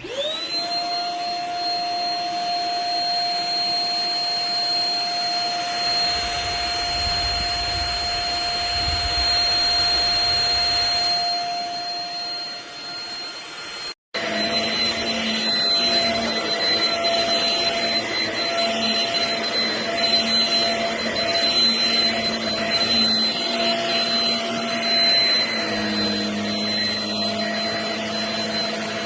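Shark HV322 Rocket Pet Plus corded stick vacuum switching on with a rising whine, then running with a steady high whine. After a brief break about halfway, it runs on with a more uneven sound.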